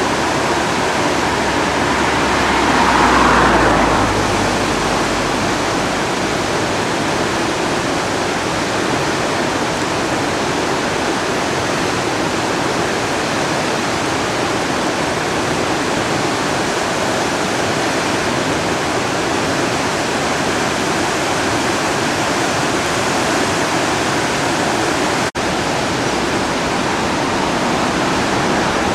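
Floodwater of the river Driva rushing in a steady, loud roar, the river in major flood at about 1000 cubic metres per second. About three seconds in it briefly swells louder with a low rumble, and near the end the sound cuts out for an instant.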